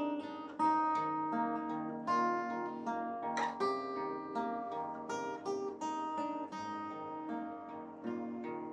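Instrumental music without singing: an acoustic guitar picks a steady run of overlapping notes that ring on into chords.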